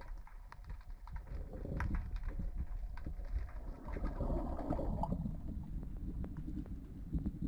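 Underwater recording from the seabed: a steady low rumble with scattered sharp clicks and, about four seconds in, a faint wavering tone.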